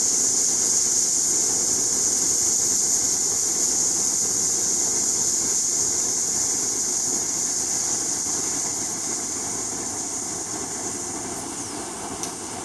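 Compressed air hissing through the CPMAS probe's magic-angle-spinning stator, spinning the sample rotor at about 5,000 Hz. The hiss fades slowly, and about ten seconds in a faint high whistle falls in pitch.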